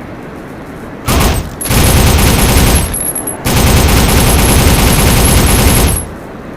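FAMAE Mini-SAF submachine gun firing on full auto in three bursts: a short one about a second in, a longer one, then a long one of about two and a half seconds that cuts off sharply.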